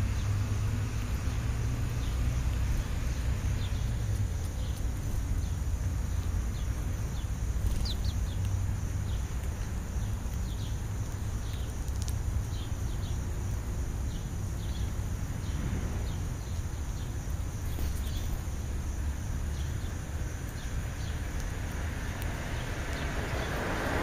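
Faint, short chirps from a flock of house sparrows, scattered every second or so, over a steady low rumble.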